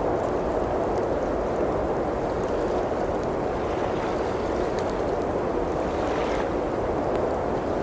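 Steady blizzard wind with a gust that swells and fades about halfway through, over faint scattered crackles from a wood fire.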